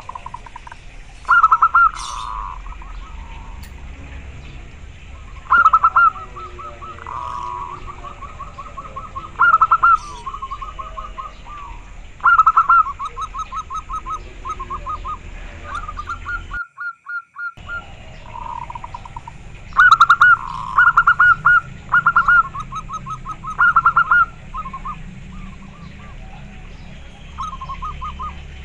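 Zebra dove (perkutut) cooing: repeated phrases every few seconds, each opening with a few loud notes and running on into a quick string of shorter, softer notes. The sound cuts out for about a second midway.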